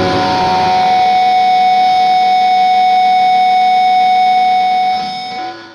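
Distorted electric guitar holding one long sustained note, which fades and stops near the end.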